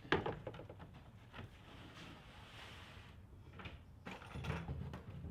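Faint knocks and rubbing of white particleboard wardrobe panels being handled and laid on a folding table, with a sharp click at the start.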